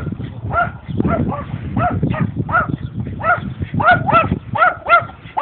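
A dog barking over and over, short sharp barks about two a second, around a dozen in all, with a low rumbling noise underneath.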